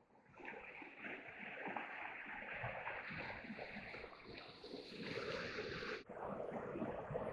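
River water rushing and splashing, a steady noise that starts a moment in and shifts abruptly in character about six seconds in.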